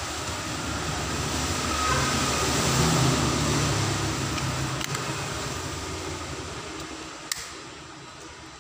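A passing motor vehicle: engine and road noise that swells to a peak about three seconds in, then slowly fades away. A sharp click comes near the end.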